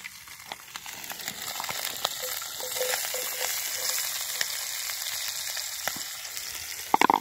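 Diced onions sizzling in hot meat drippings in a cast-iron skillet, with small scrapes and ticks of a spoon against the plastic bowl as they are tipped in. A few quick ringing knocks come near the end.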